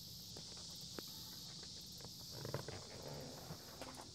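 Faint footsteps crunching on gravel, with a few light clicks, over a steady high chirring of crickets.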